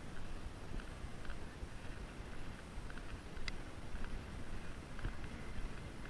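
Wind buffeting an action camera's microphone: an uneven low rumble with a hiss over it, with faint scattered ticks and one sharp click about three and a half seconds in.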